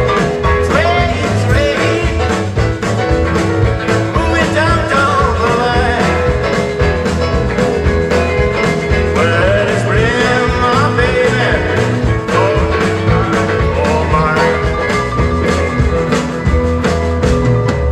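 Live rautalanka band playing an upbeat rock-and-roll number: electric guitars over bass and a steady drum beat.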